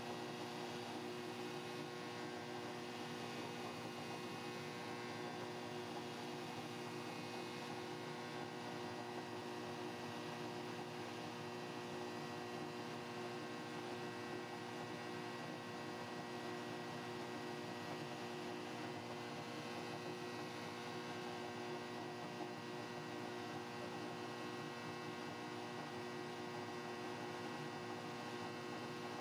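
Steady hum of powder-coating equipment running, with several fixed tones over a soft hiss, unchanging throughout: the booth's exhaust fan and the air-fed electrostatic powder gun spraying.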